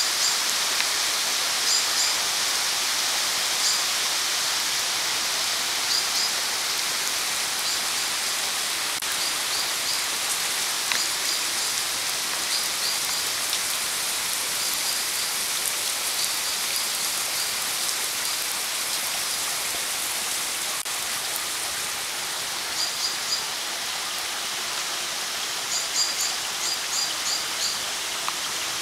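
Heavy rain falling steadily on a grass lawn and trees, an even hiss. Short high bird chirps come in quick runs over it, most of them near the end.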